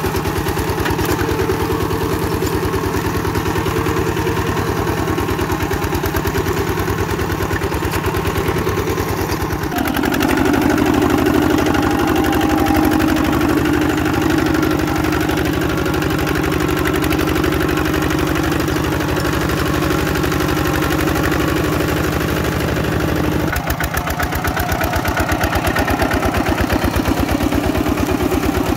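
Kubota bulldozer's diesel engine running steadily, its note changing abruptly about ten seconds in and again near the end.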